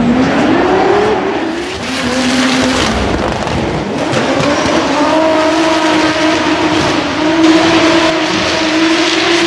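Drift cars sliding with engines at high revs and tyres squealing. The engine note climbs over the first second or so, then holds fairly steady from about four seconds in.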